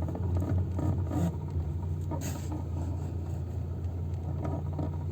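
VAZ-2110 clutch pedal creaking with a rubbing squeak as it is worked a few times, over the steady low hum of the running engine. The squeak comes on once the car has been driven a little. It persists despite a new clutch and fork and lubricated pedal bushings and cable, and the owner suspects the clutch cable.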